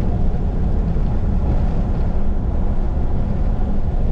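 Steady low rumble of a pickup truck driving along a road, engine and tyre noise heard from inside the cab.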